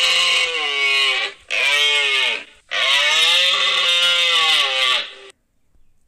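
Deer hinds calling: three long, drawn-out calls that bend up and down in pitch, the last the longest, stopping about five seconds in.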